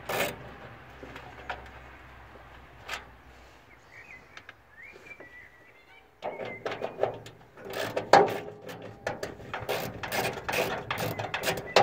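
Hand ratchet with an 8 mm socket clicking in quick, uneven runs as it works a grille bolt loose, starting suddenly about six seconds in. Before that it is quiet apart from a faint bird chirping.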